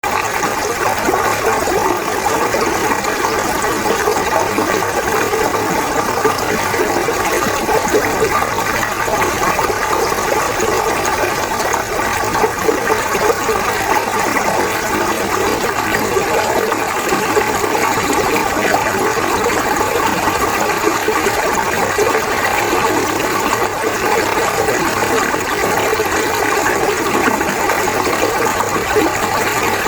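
Fast-flowing river water rushing steadily and loudly over its bed.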